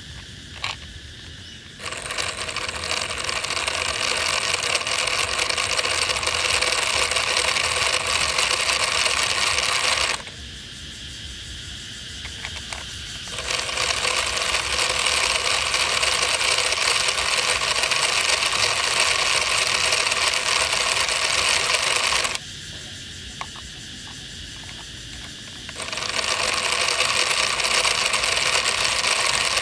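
DIY plastic model of a single-cylinder diesel tractor engine running with its flywheel spinning: a fast, dense mechanical whirring rattle. It starts about two seconds in, stops and restarts twice, and runs in spells of about eight seconds.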